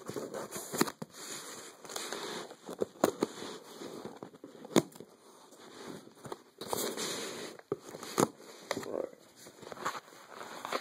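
A shipping package being opened and its packing handled: rustling and crinkling with sharp clicks and knocks scattered throughout.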